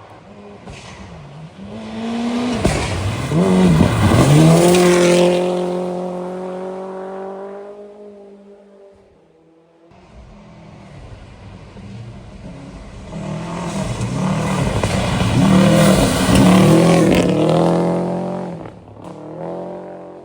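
Two historic rally cars passing at speed one after the other, each engine swelling to a loud pass with revs rising and dropping, then fading away.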